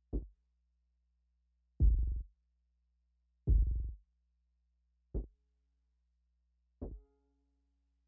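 Moog DFAM analog percussion synthesizer playing five slow, deep drum hits about 1.7 seconds apart, each a low pitched thump that dies away quickly. The second and third ring longer and are the loudest, and a faint held tone follows the last hit.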